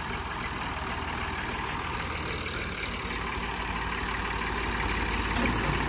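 Diesel tractor engines idling with a steady low rumble, growing slightly louder near the end.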